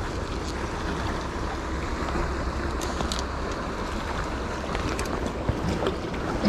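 Stream water rushing steadily, with a few light ticks and a brief thump right at the end.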